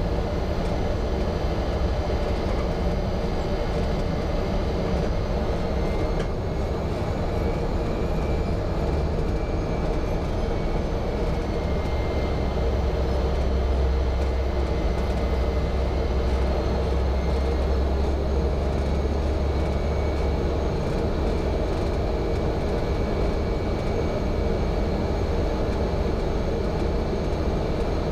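Cessna 208B Caravan's Pratt & Whitney PT6 turboprop running at low taxi power, heard from the cockpit: a steady drone with a deep rumble and thin high whining tones that waver slightly.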